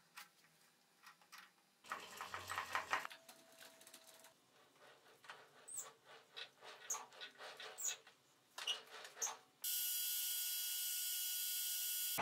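Light metallic clicks and clinks from a homemade knurling attachment being adjusted on a brass rod in a lathe, with a short burst of rattling about two seconds in. Near the end a steady machine hum with hiss starts abruptly: the metal lathe running.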